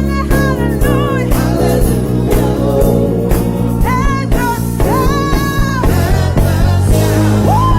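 Live church praise band playing contemporary gospel music: held low bass notes under a melody line that slides up and down.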